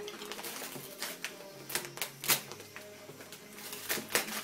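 Tissue paper and a gift bag crinkling and rustling as a present is unwrapped, in irregular sharp crackles.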